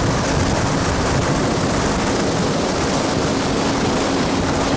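Fishing boat's outboard motor running steadily at speed, a constant engine tone under a loud, even rush of wind and water.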